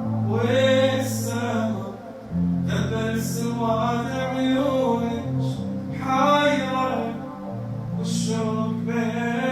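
A man singing an Arabic song in long, wavering, held phrases over sustained low accompaniment whose chords change every few seconds.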